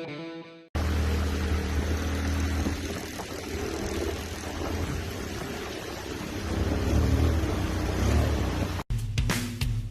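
ATV engine running with a steady low hum under a rough hiss. Near the end it cuts off suddenly and music with drums takes over.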